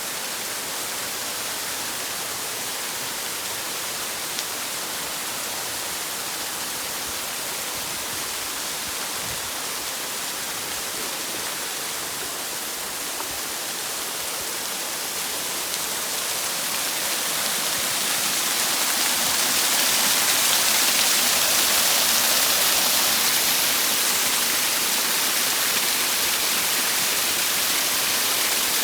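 Waterfall rushing steadily: a dense, even hiss of falling water that grows louder about two-thirds of the way through.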